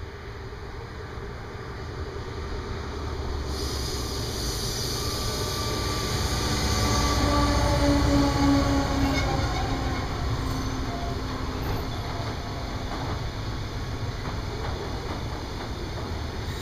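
Rurtalbahn V155 diesel locomotive hauling a container train, getting louder as it approaches and passes about eight seconds in, its engine note dropping slightly as it goes by. It is followed by the steady rumble and clatter of the container wagons' wheels rolling past.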